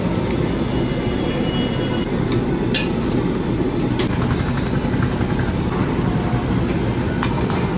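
A large iron kadai of chicken curry cooking hard over a gas burner: a steady low rumble with sizzling and bubbling. A metal ladle clinks sharply against the pan a few times.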